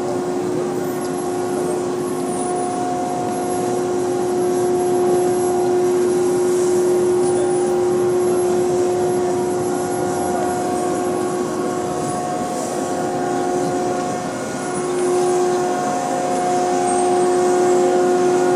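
Gantry crane machinery running steadily as it hoists a yacht in slings: a constant hum with a mid-pitched whine that dips briefly about fourteen seconds in.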